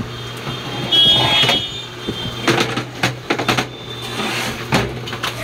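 The metal chassis of a Sky Sound CA20 power amplifier is handled and laid down flat on a workbench, giving several knocks and clunks over a steady low hum.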